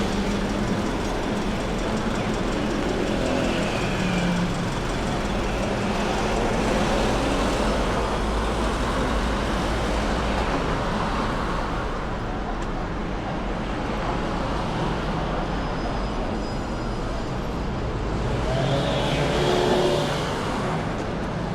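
City street ambience dominated by steady road-traffic noise, with faint distant voices and a brief louder swell near the end.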